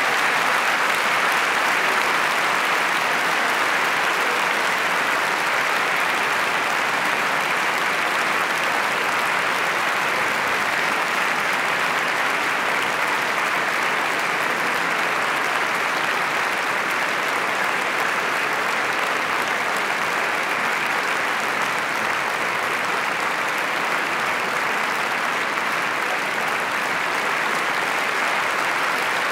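Audience applauding steadily, a dense and even clapping with no music or voices over it.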